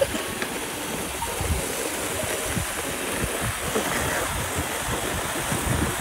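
Robot vacuum cleaners (iRobot Roombas and a eufy) running, a steady rushing hiss, with wind rumbling on the microphone.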